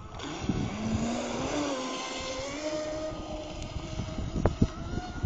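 Electric motor of a Cyber Storm 33 RC mono-hull boat on a 4S LiPo pack whining as the boat accelerates away. The pitch climbs over the first couple of seconds, then holds steady at speed.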